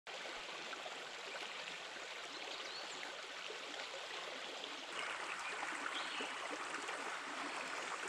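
Small forest stream flowing: a steady rush of water that gets a little louder about five seconds in.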